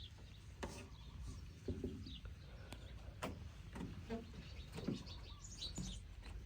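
Short, scattered chirps and a few sharp clicks at irregular intervals, over a steady low background rumble.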